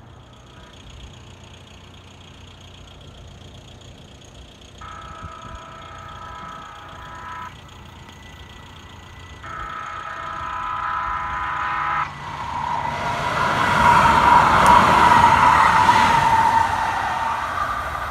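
Light rail train horn sounding two long blasts of about two and a half seconds each, a warning for a grade crossing. Then a Kinkisharyo P3010 light rail car rolls past on a tight curve, its wheels squealing over the rumble of the wheels, loudest shortly before the end.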